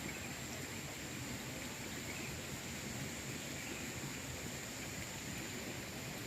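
Water running steadily in a village ditch after rain: an even, rushing hiss with a faint steady high tone above it.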